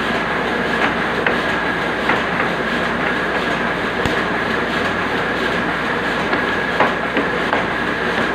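Cutting machine running steadily: a constant mechanical noise with a high, even whine and irregular sharp clicks.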